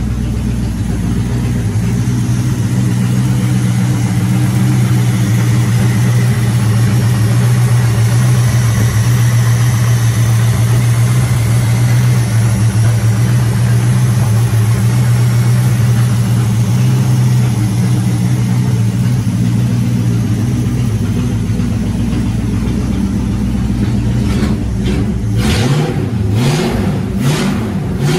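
Classic car's carbureted V8 idling steadily with a deep, even note. Near the end the revs rise and fall a few times.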